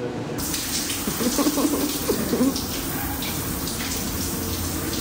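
Shower water running: a steady hiss of spray in a tiled shower room, starting abruptly about half a second in.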